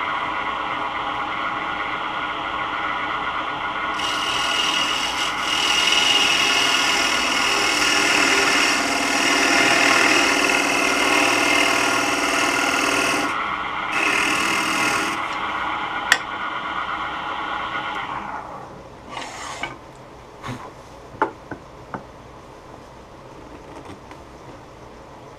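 Laguna Revo 12/16 wood lathe running with a steady hum while a carbide tool scrapes into the end grain of a spinning wooden wheel, hollowing a recess in two long cuts. Near the end the lathe winds down, and a few light knocks follow.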